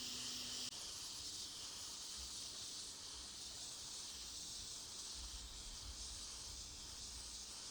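Hot-air gun blowing with a steady hiss, heating the phone's shattered back glass to soften it for removal.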